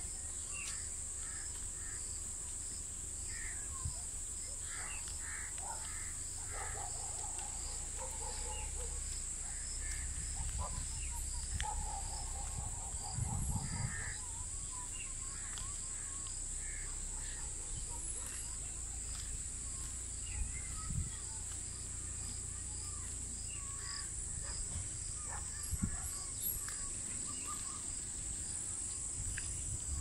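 Rural outdoor ambience: birds calling on and off over a steady high-pitched drone, with a low wind rumble on the microphone.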